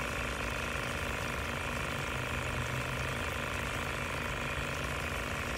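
A pump running steadily with a constant hum, and water bubbling in the tub where the tubing feeds in.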